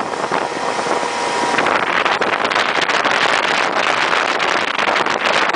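Towing motorboat's engine running at speed, mixed with wind buffeting the microphone and the rush of the churning wake.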